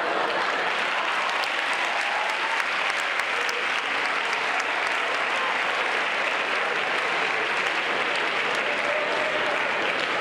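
Audience applauding: a dense, steady patter of many hands clapping, with a few voices mixed in.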